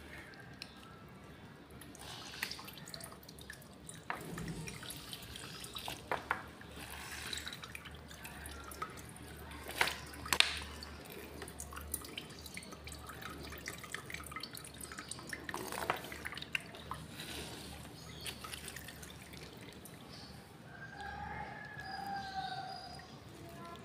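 Water dripping and trickling into a plastic strainer basket as wet filter cotton is squeezed out and rinsed with water from a plastic bottle, with scattered small taps.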